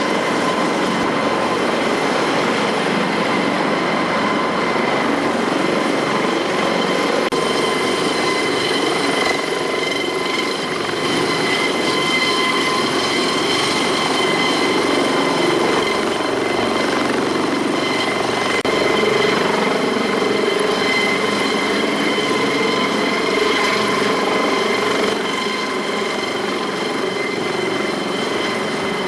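Eurocopter AS365 Dauphin helicopter running steadily, its twin Turboméca Arriel turboshafts giving a steady high whine over a constant rushing noise of rotor and exhaust.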